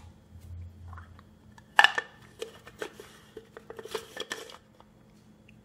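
Hard plastic parts of a Seaflo raw water strainer clicking and knocking as they are handled and fitted together, the clear bowl going onto the grey housing. One sharp knock about two seconds in, then a run of small clicks and scrapes.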